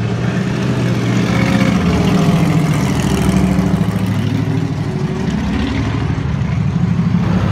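Loud hot-rod drag car engine running low and rough as it drives by, its pitch rising and falling a little.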